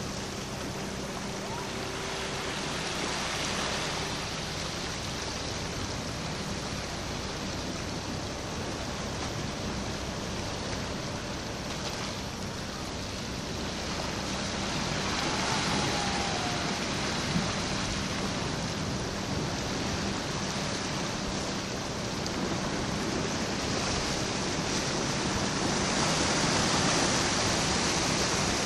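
Sea water washing and churning against the rocks of a harbour jetty: a steady rush that swells a little at times, with a faint low hum underneath.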